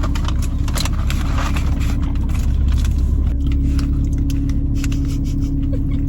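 Car cabin noise with the engine running: a steady low rumble, scattered light clicks, and a steady engine hum that grows stronger about three and a half seconds in.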